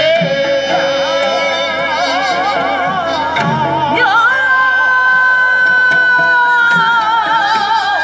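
Korean traditional (gugak) music: singing with instrumental accompaniment, the pitches wavering in wide vibrato. About four seconds in, one long note is held and slides slowly downward.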